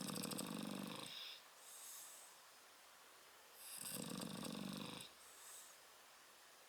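Shar-Pei dog snoring in its sleep: two long snores about four seconds apart, each followed by a quieter short breath.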